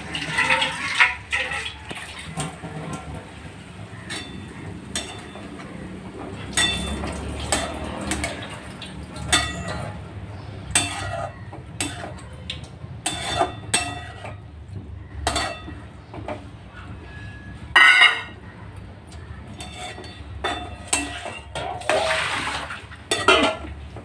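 A spatula scraping and knocking against a metal kadai while fenugreek greens are stirred in it: irregular clinks and scrapes, with one louder knock about 18 seconds in.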